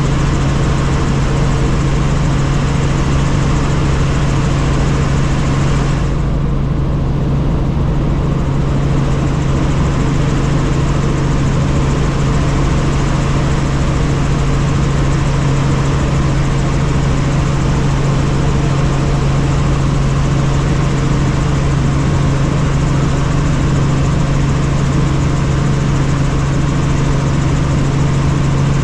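Light helicopter in flight heard from inside the cabin: a steady, loud drone of engine and rotor with a strong low hum under a rushing hiss. The hiss dulls briefly about six seconds in.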